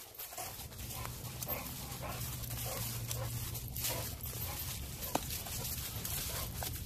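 A Renascence Bulldogge moving close to the microphone with footsteps crunching through dry fallen leaves, with many short crackles and one sharp click about five seconds in.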